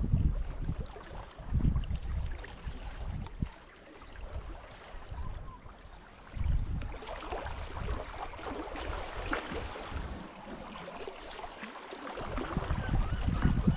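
Water washing and sloshing with irregular low rumbling gusts of wind on the microphone; the wash grows busier about halfway through.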